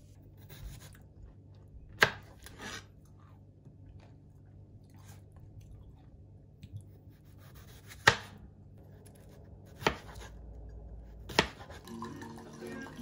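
A chef's knife slicing a cucumber on a plastic cutting board: four sharp chops at uneven intervals. Music starts near the end.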